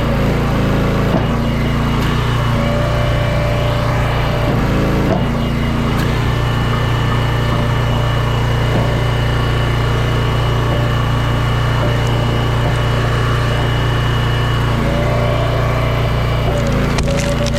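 Small gas engine of a log splitter running steadily, its tone shifting a few times as the hydraulic load changes. Near the end, wood starts cracking and splintering as a round is split.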